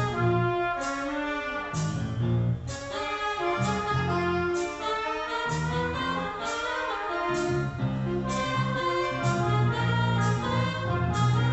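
School band of saxophones and trumpets playing sustained chords over keyboard, electric bass and drums, with new chords struck on a steady beat.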